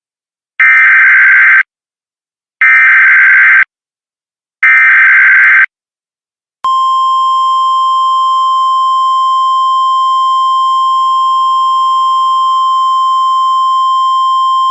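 Emergency Alert System tornado warning: three loud one-second bursts of screeching digital data tones (the SAME header), two seconds apart. About six and a half seconds in, a single steady high-pitched weather-radio alert tone starts and holds.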